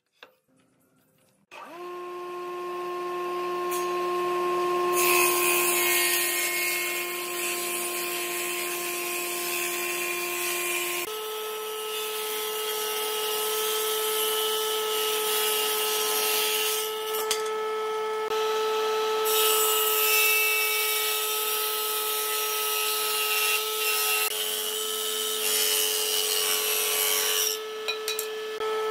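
Table saw on a combination woodworking machine starting up about a second and a half in, then its circular blade ripping a wooden board fed along the fence. A steady motor hum runs under the rasp of the cut, which stops and starts between passes.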